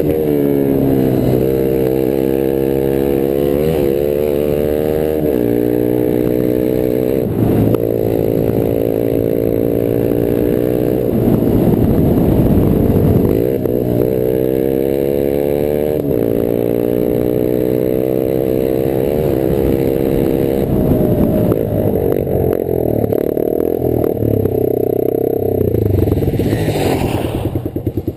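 Rieju Marathon 125 AC's engine through an open exhaust with no silencer, revving up through the gears on a dirt track. The pitch climbs and drops back again and again with each shift. Near the end the throttle closes and the engine note turns choppy as the bike slows.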